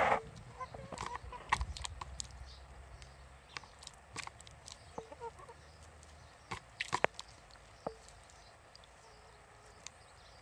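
Hens pecking sunflower seeds from a plastic tray of shallow water: scattered sharp taps of beaks on the tray, with a quick cluster about seven seconds in. A few short, soft clucks come in between.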